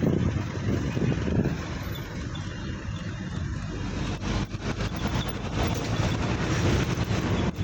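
Steady road and wind noise from a moving vehicle, a rumbling rush with no clear engine note.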